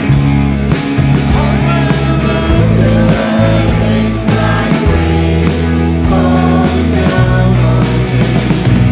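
Live worship band playing a song: drums, bass guitar, electric and acoustic guitars, with voices singing the melody over a steady beat.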